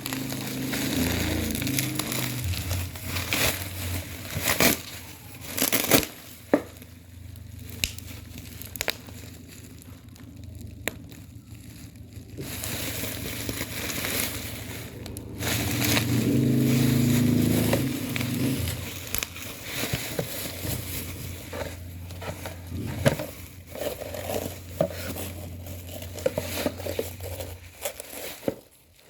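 Packaging being handled and opened: crinkling, crumpling plastic and paper with scattered sharp clicks and knocks, over a low steady hum.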